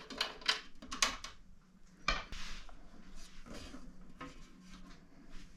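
Scattered small clicks, knocks and clinks as a glass side panel is unscrewed and lifted off a computer case.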